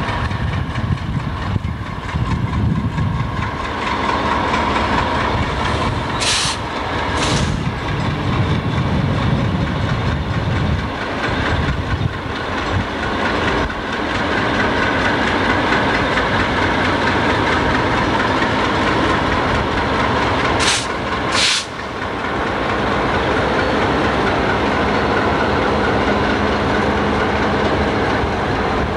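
Burlington Northern diesel locomotives rolling slowly past, engines rumbling and wheels clicking over the rail joints. Twice there is a quick pair of short, sharp high-pitched sounds.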